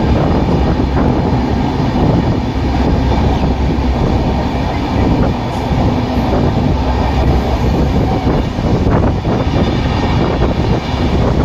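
Passenger express train running at speed, heard from inside the coach: a steady rumble of wheels on rails with faint clatter over the rail joints.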